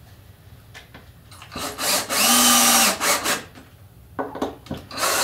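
Cordless drill driving screws into a wooden plaque backboard: a steady motor whine for about a second, starting about two seconds in, a brief blip, then another run starting near the end. Small clicks and knocks of handling the wood come between the runs.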